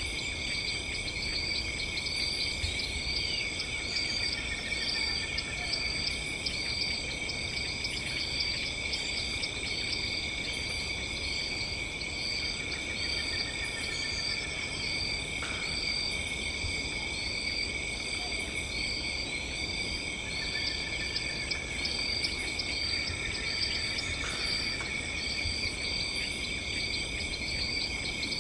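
Crickets and other night insects singing together: several steady high-pitched trills overlapping, with one insect chirping in an even rhythm and short trills coming and going, over a low steady rumble.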